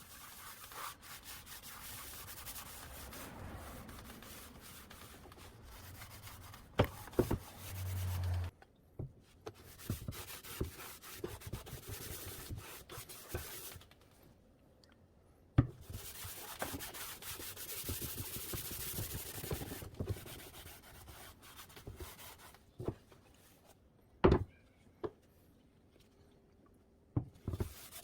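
Rubbing on a wooden surface in stretches of a few seconds, broken by short pauses, with a few sharp knocks of wood, the loudest about 24 seconds in.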